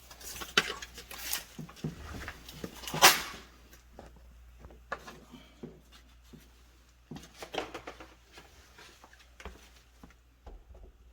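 Scattered clicks and knocks from hands handling a refrigerator's plug and wiring, with one sharp knock about three seconds in, over a steady low hum.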